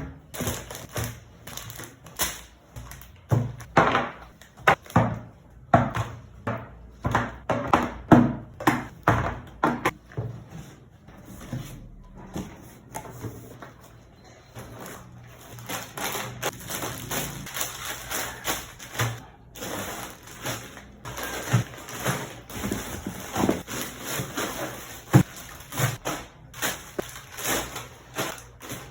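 Groceries being unpacked and handled: many sharp taps and knocks as items are set down, then denser crinkling and rustling of packaging in the second half.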